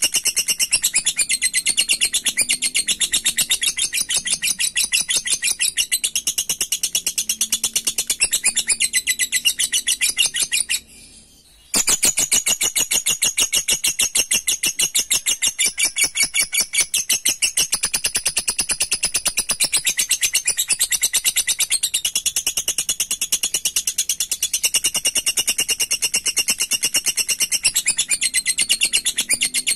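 Lovebird giving a long 'ngekek': a rapid, unbroken chatter of high, shrill notes, the excited call that keepers use to rouse rival lovebirds. It stops for about a second near the middle, then carries on.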